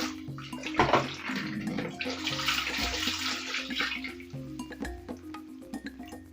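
Water poured into a blender jar to rinse out the last of the blended tomato mixture, a rushing splash lasting about two seconds near the middle, with a shorter splash about a second in. Background music with a steady beat runs underneath.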